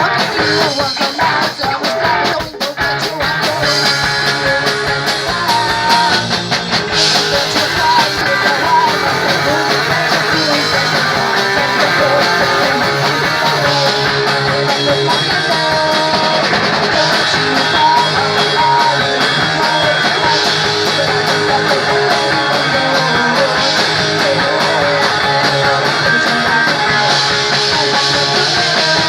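Punk rock band playing live: electric guitars and drums, loud and continuous, with a short drop in level about two and a half seconds in.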